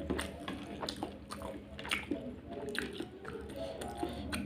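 Close-miked chewing and biting of spicy crunchy Indomie noodles: irregular wet clicks and mouth sounds, several a second.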